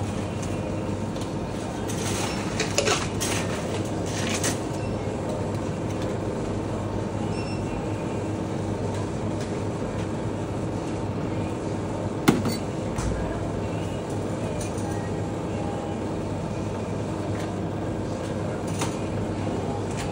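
Steady mechanical hum, with a few light clicks and clinks about two to four seconds in and one sharp knock about twelve seconds in.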